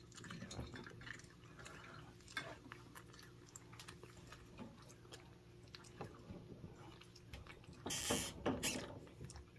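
A cat chewing and licking soft canned food: faint wet clicks and smacks. About eight seconds in there is a short, louder rustling burst.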